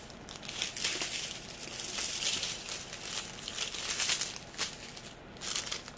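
Small plastic bags of diamond painting drills crinkling and rustling as they are handled.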